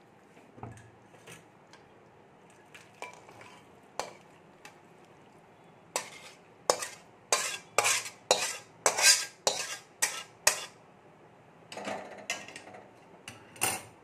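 A spatula scraping and knocking against a metal kadai as cooked curry is scooped out into a steel bowl. There are a few light knocks at first, then a quick run of about a dozen sharp clatters in the middle, and a few more near the end.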